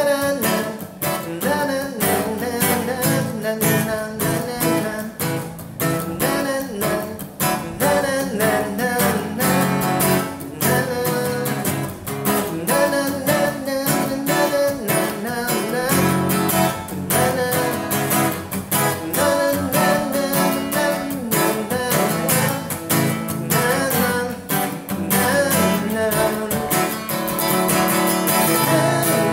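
Steel-string acoustic guitar, capoed at the second fret and played in A, strummed in a steady rhythm with regular chord changes.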